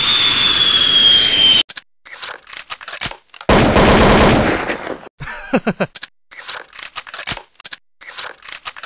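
Film sound effects of Iron Man armor pieces flying in and locking on: a rushing noise with a high whine that slowly falls in pitch, then rapid metallic clicking and clanking. About three and a half seconds in comes a loud blast lasting over a second, followed by more quick runs of mechanical clatter.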